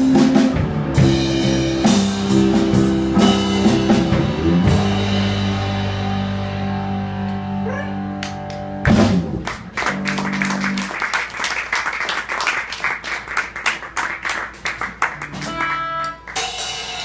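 Live rock band, electric guitars and a drum kit, playing with no vocals: long held guitar notes over drum hits, then, about halfway, fast repeated strumming that grows quieter toward the end as the song winds down.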